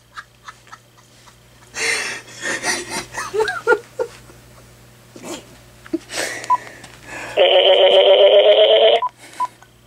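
Uniden Loud&Clear cordless phone handset: a few light clicks, then a couple of seconds of its synthetic talking caller ID voice with oddly sliding pitch, and near the end a loud steady fluttering tone from the handset lasting about a second and a half.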